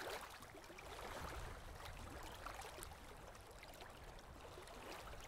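Faint water sounds around a kayak drifting on a slow river: a soft trickle with scattered small splashes and drips.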